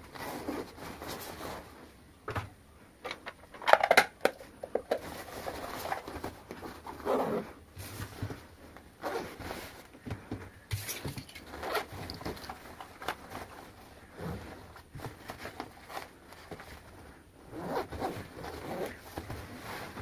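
Zippers on a Xiaomi Mi Casual Backpack being pulled along the fabric of the packed bag, in short irregular rasps mixed with handling knocks and rustles, the loudest a cluster of sharp knocks about four seconds in.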